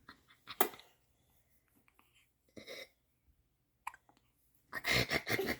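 A small child hiccupping: short, sharp single hiccups a few seconds apart, the clearest about half a second in and again near four seconds in. A short burst of voice follows near the end.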